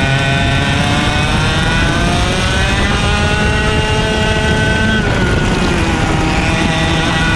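IAME X30 125cc two-stroke kart engine at full throttle, its pitch climbing steadily for about five seconds, then dropping sharply as the throttle is lifted for a corner and starting to climb again.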